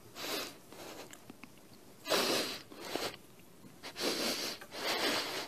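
A man sniffling and taking short, shaky breaths into a close microphone as he chokes up with emotion, about five breaths with pauses between them.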